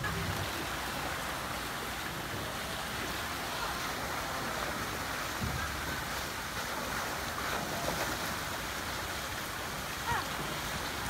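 Water rushing steadily out of a water slide's outlet and splashing into the pool.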